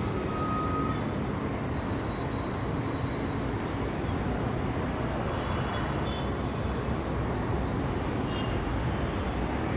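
Steady outdoor background noise: a continuous, even rumble and hiss, with a faint short tone about half a second in.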